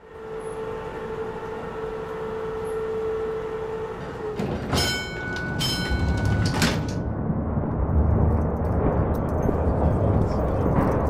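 Passenger lift: a steady hum for about four seconds, then a few metallic clanks with a ringing edge as the sliding doors open, followed by a low rumble that carries on.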